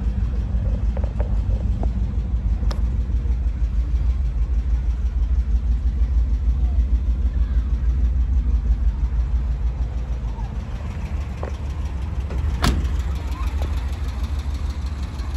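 Volkswagen Bus engine idling with a steady low rumble, a little fainter from about ten seconds in. A thin click sounds a few seconds in, and a louder sharp knock comes near the end.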